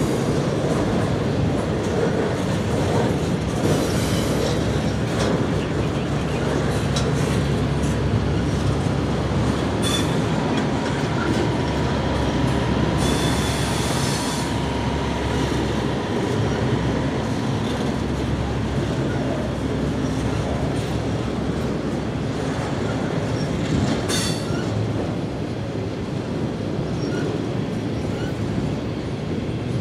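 Norfolk Southern double-stack intermodal freight train rolling steadily past on the rails, the cars clattering over the track. A thin wheel squeal rises in the middle.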